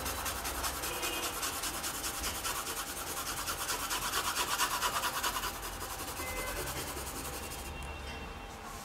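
Graphite pencil hatching rapidly back and forth on drawing paper to shade dark hair: an even, quick scratching of many strokes a second that eases off about five seconds in.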